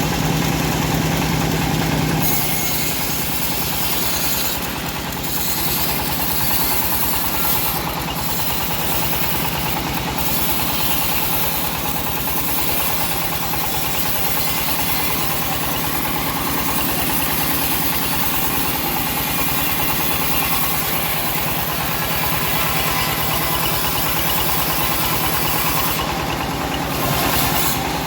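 Engine of a homemade bandsaw sawmill running steadily while the blade saws teak, with a constant hiss from the cut over the engine's note. A low hum drops out about two seconds in.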